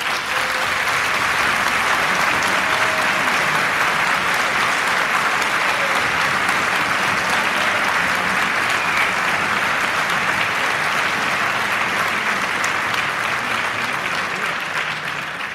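Theatre audience applauding steadily, fading away near the end.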